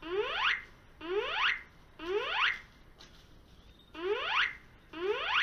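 Automatic fire alarm receiver sounding its alarm tone during a receiver test: rising sweeps, each about half a second long, three of them a second apart, a short pause, then two more. This is the whooping tone that alternates with the recorded "火事です" ("Fire!") voice message.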